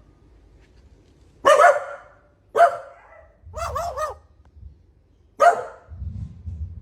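Barking: loud single barks spaced a second or more apart, with a quick run of three near the middle. They come from dogs and a bird that imitates their bark closely.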